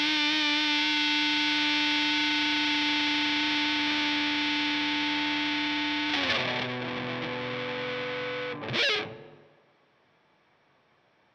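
Schecter PT Fastback electric guitar through an amp with distortion: a chord left ringing with a slow, chorus-like wavering. About six seconds in the sound changes, a short loud swell comes near the end, and the sound then dies away to near silence.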